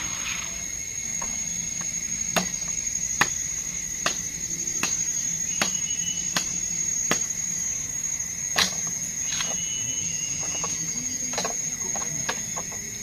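Steady high-pitched drone of forest insects, with sharp clicks or knocks coming about once a second.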